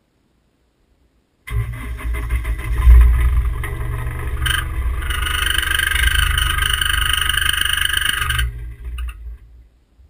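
Motor vehicle running, a low engine rumble with hiss over it. It starts suddenly about a second and a half in, holds steady, then stops sharply and trails off near the end.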